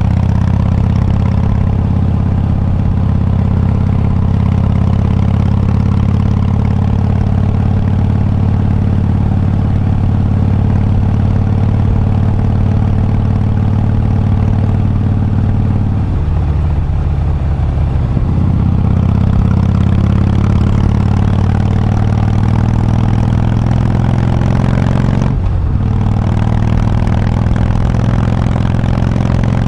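Harley-Davidson Breakout's V-twin engine running steadily. The note shifts lower for a couple of seconds a little past halfway and drops briefly near the end.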